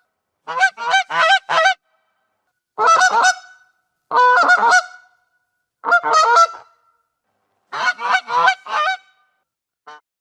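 Goose honking in quick runs of three or four honks, with short silent pauses between the runs, and a faint single honk near the end.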